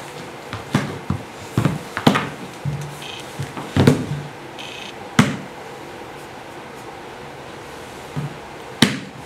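Irregular knocks, slaps and thumps made by dancers with their own bodies (hands on body, feet on the floor), about a dozen hits loosely spaced, with a long pause before one last sharp hit near the end. A couple of brief high squeaks come in the middle.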